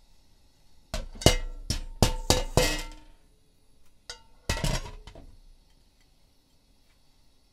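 Sharp metallic clinks and knocks of metal cookware, each with a short ring: a quick run of about six from about a second in, then two or three more about four and a half seconds in.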